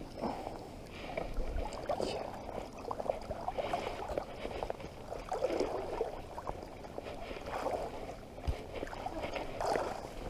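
Water splashing and sloshing unevenly, with many small knocks and clicks mixed in.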